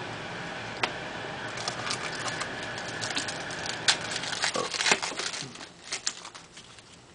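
Crinkling and rustling of a foil trading-card pack being torn open and the cards inside handled: a run of quick crackles and clicks, busiest in the middle. A steady background hum drops away near the end.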